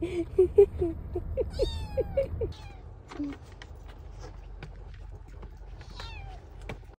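Kitten meowing over and over: a quick string of short meows and a longer falling one, with a car's low running rumble underneath. The rumble drops away partway through, and one more falling meow comes near the end.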